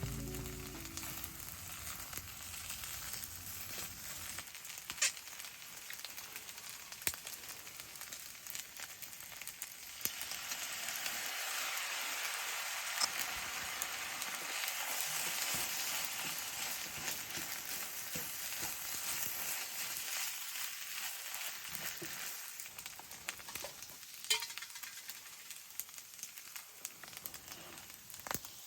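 Food sizzling and frying in a hot pan, the sizzle swelling louder for a stretch in the middle, with a few sharp pops or taps.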